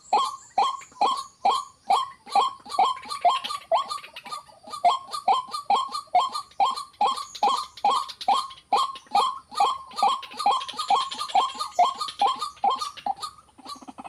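White-breasted waterhen calling its 'ruak ruak' call: an unbroken run of short notes, about three a second, each one dropping in pitch.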